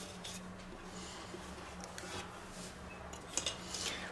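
Wooden rolling pin rolling out dough on a floured wooden board: soft, faint rubbing, with a few light clicks of the pin a little after three seconds in. A low steady hum runs underneath.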